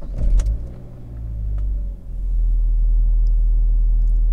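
The 2002 Saab 9-5 Aero's 2.3-litre turbocharged four-cylinder engine, heard inside the cabin, cranks on the starter, catches about two seconds in, then idles steadily. This is a test start after new spark plugs and a refitted direct-ignition cassette, and the engine sounds great.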